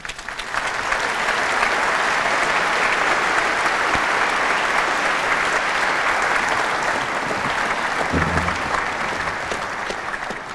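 Large audience applauding, the clapping swelling up within the first second, holding steady, then tapering off near the end.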